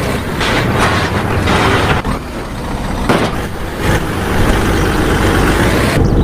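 Truck engine running steadily and loudly, with a broad hiss over it.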